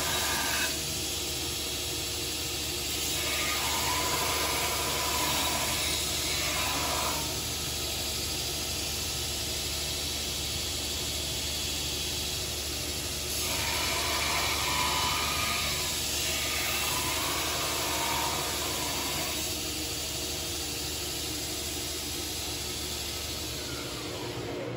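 Belt grinder running steadily with a low motor hum, as a pattern-welded steel spear head is rough-ground against the belt in passes of a few seconds, a harsher hiss, three times, with the belt running free between them.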